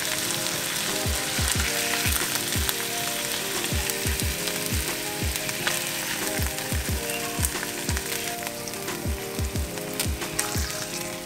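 Pompano fillets sizzling in hot oil in a frying pan while they are lifted out with tongs, with a few light clicks. Background music with a steady bass beat plays underneath.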